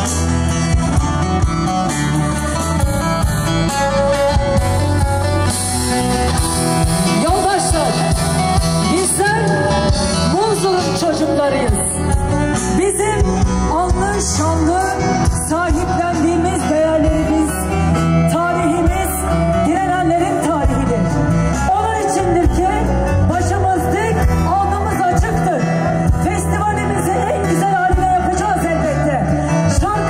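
Live concert music: a singer over a band with a steady bass line, the voice sliding between notes.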